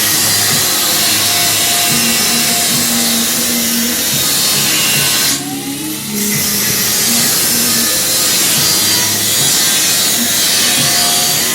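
Loud background music with a stepping bass line under a dense hissing layer, with a brief drop about five seconds in.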